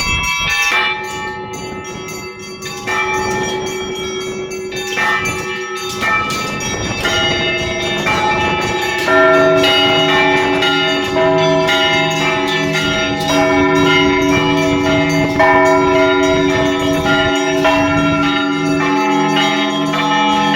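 Orthodox church bells rung for Easter: several bells of different pitches struck in a rhythmic peal, quick strikes of the smaller bells over the long ringing of larger ones. The peal grows fuller and louder about nine seconds in.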